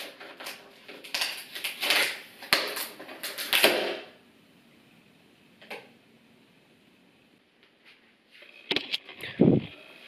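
Cardboard packaging of a flat-pack shelf being handled and pulled open: about four seconds of scraping, crackling and tearing with sharp clicks, then quiet apart from a single small knock, and another short burst of rustling near the end.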